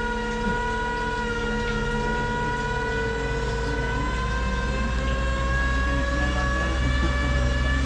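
Glass-bottom tour boat's motor running with a steady whine over a low rumble, the whine slowly rising in pitch and the rumble growing a little louder partway through as the boat gathers speed.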